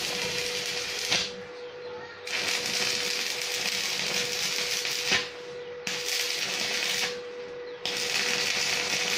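Stick (arc) welding on scrap steel: the arc crackles and sizzles in four runs of one to three seconds, stopping and restarting between short welds. A steady hum runs underneath.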